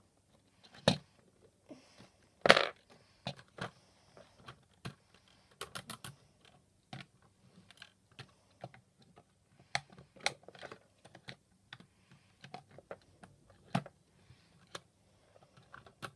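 LEGO plastic toy vehicles and pieces being handled and set down on a shelf: irregular sharp clicks and knocks of hard plastic, the loudest about one second and two and a half seconds in.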